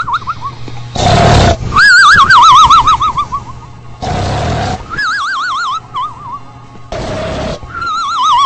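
A horse whinnying again and again, about every three seconds. Each quavering, falling whinny follows a short, loud, rasping breath, three times in a row like a looped recording.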